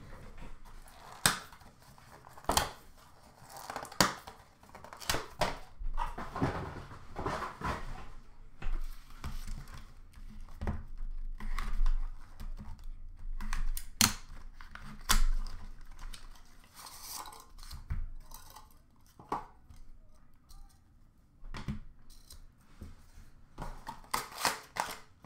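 Hands opening a sealed trading-card box and its packaging: irregular sharp clicks and knocks of cardboard and plastic, with rustling and some tearing between them.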